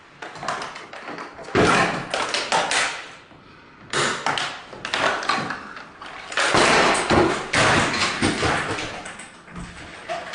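A plastic quadcopter drone being bashed and ground against a wooden tabletop: several bouts of hard thuds, knocks and scraping with short pauses between them.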